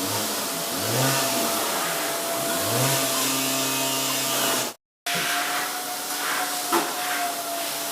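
A vehicle engine revving up twice, each time rising in pitch and then holding, over a steady hiss and whine. The sound cuts out briefly just before five seconds in, then the steady noise resumes with a single click near the end.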